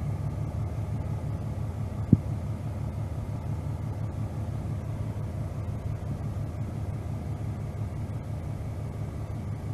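The fire truck's Cummins ISM 10.8-litre inline-six diesel engine idling with a steady low rumble, with one short sharp knock about two seconds in.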